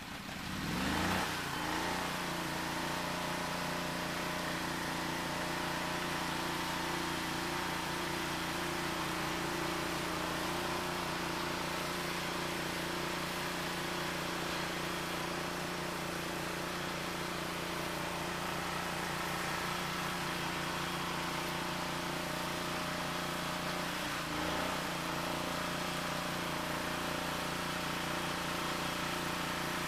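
Eliet Snowbob 9018T snow blower's engine speeding up about a second in, then running steadily at working speed. About three-quarters of the way through, its pitch dips briefly and recovers.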